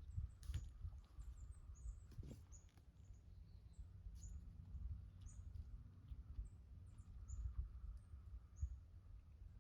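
Small birds chirping in short, high, repeated notes over a low steady rumble, with two sharp clicks in the first couple of seconds.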